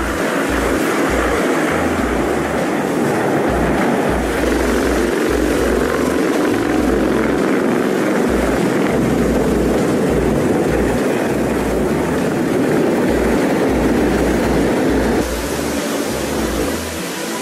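Military helicopters and jet bombers flying overhead in formation: a loud, steady noise of rotors and engines, with irregular low rumbles beneath. The sound changes and drops a little about fifteen seconds in.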